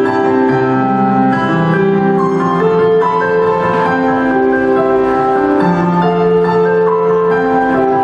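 Yamaha electronic keyboard playing a slow instrumental intro of long held chords and melody notes, with no singing.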